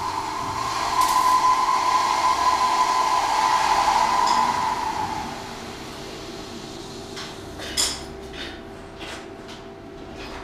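Fire-fighting pump station pump running with a steady hum while water rushes through the pipework as the system pressure builds. The rushing hiss fades after about five seconds, leaving the hum, with a few light metallic clicks in the second half.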